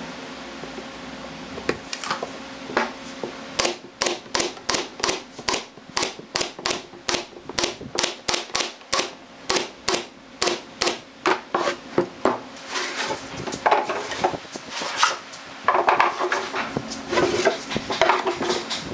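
Pneumatic brad nailer firing a long series of sharp shots, about two to three a second, driving brads through a plywood panel into a pine frame. The shots turn louder and more irregular in the last few seconds.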